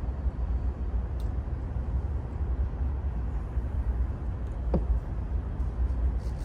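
Steady low rumble, with a faint click about a second in and a short, sharp squeak near the end.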